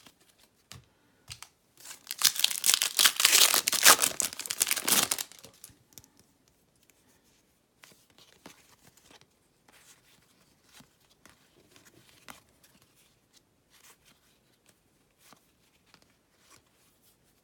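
A baseball card pack wrapper being ripped open: a burst of crinkly tearing about two seconds in that lasts some three seconds. Faint light clicks follow.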